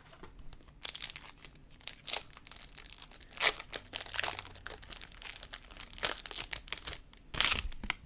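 A trading-card pack's plastic wrapper being crinkled and handled, in irregular crackles that are loudest about three and a half seconds in and again near the end.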